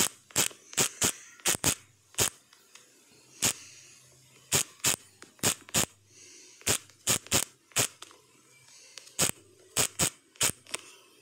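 Key taps of typing on a smartphone's on-screen keyboard: about twenty short, sharp clicks at an uneven pace, some in quick runs, as an email address is entered letter by letter.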